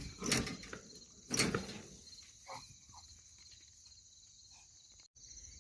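Steady high chirring of crickets, with two short broad noises in the first second and a half, the second the louder one.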